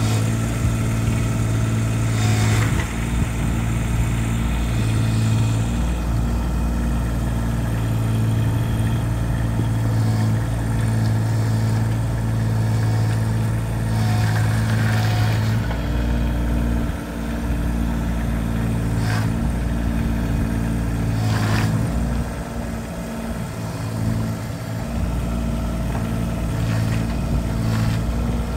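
Kubota KX41-3V mini excavator's diesel engine running steadily as the machine moves, with a few short knocks.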